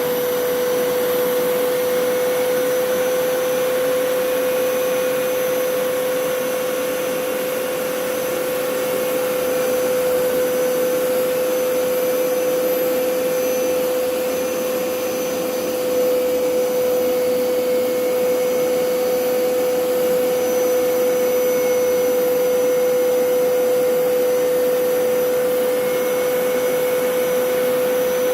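Hoover PowerScrub Elite carpet cleaner running, its motor giving a steady, unbroken whine that gets slightly louder a little past halfway.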